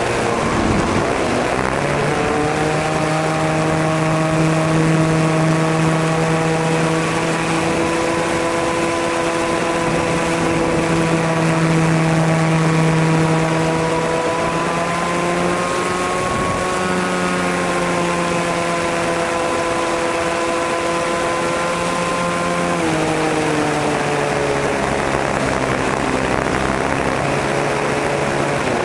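The O.S. .40 model glow engine of an RC Calmato Sport 40 plane running at high revs in flight, heard from a camera on the plane with a hiss of rushing air. The engine note rises about two seconds in, holds steady, and drops to a lower speed about 23 seconds in.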